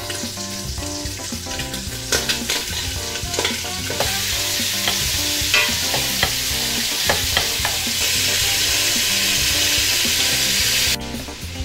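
Diced onion and browned ham sizzling in oil in a stainless-steel stockpot while a spoon stirs them, with short scrapes and clicks of the spoon against the pot. The sizzle gets louder in steps and cuts off suddenly near the end.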